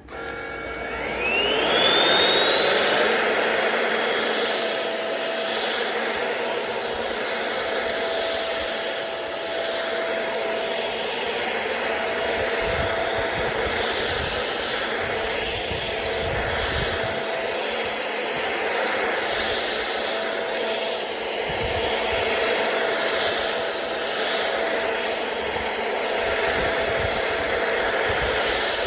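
DEVOAC N300 cordless stick vacuum switched on: its motor spins up with a rising whine over the first couple of seconds, then runs steadily with a rush of air.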